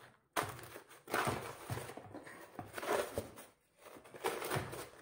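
Paper rustling in irregular swishes as flour-packet paper is tucked around stacked chapatis in a plastic basin, with a few light taps.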